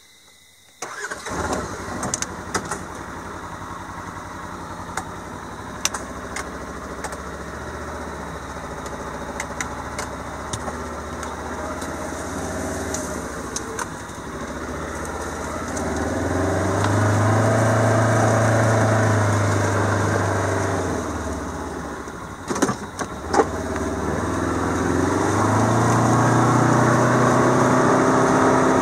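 A vehicle engine starts a little under a second in and then runs, heard from inside the cab. Later its note rises and falls twice as the vehicle drives along, with a few sharp clunks between the two rises.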